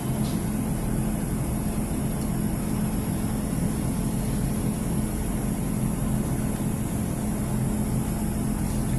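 Cabin noise inside a Class 150 Sprinter diesel multiple unit running at speed: a steady low hum from the underfloor diesel engine over the rush of wheels on rail, with no change through the stretch.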